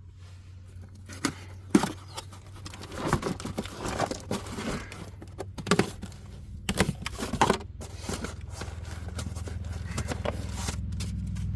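A cardboard box and its packaging being opened by hand: tearing and crinkling with scattered knocks and rustles. A low steady hum builds in the last few seconds.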